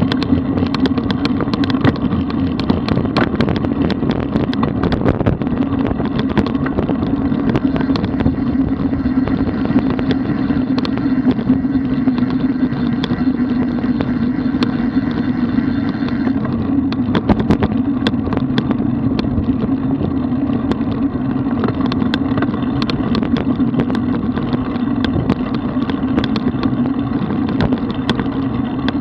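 Wind rushing over the microphone and tyre-and-road rumble from a road bicycle riding at around 30 km/h, with frequent small clicks and knocks. The sound changes abruptly about sixteen seconds in.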